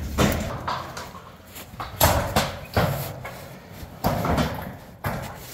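Corrugated galvanised iron sheets being pulled down by hand, giving a series of sharp metallic bangs and rattles at irregular intervals as the sheets flex and strike each other.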